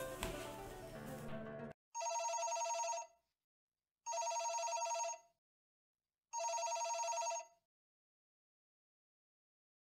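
Background music cuts off suddenly just under two seconds in, then a telephone rings three times, each ring about a second long with a fast trill, about two seconds apart.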